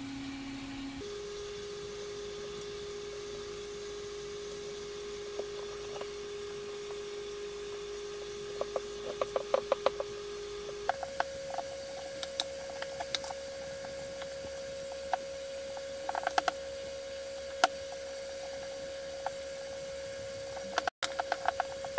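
Clicks and taps of hard plastic parts as a Bosch pressure washer trigger gun is handled and fitted back together, coming in quick clusters in the second half. A steady held tone sounds underneath and steps up in pitch twice.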